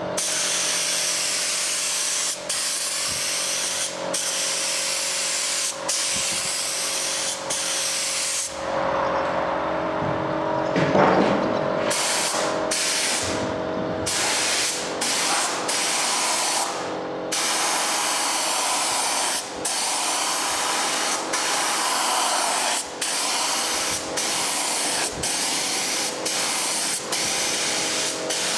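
Compressed-air paint spray gun hissing in bursts, broken every second or two as the trigger is let off, with a quieter lull about a third of the way through. A steady hum runs underneath.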